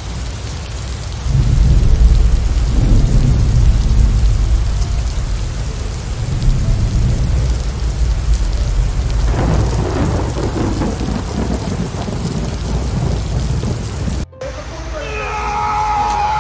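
Heavy rain with a deep rumble of thunder: a loud, dense rushing hiss over a low rumble that swells about a second in and holds, broken by a brief dropout near the end.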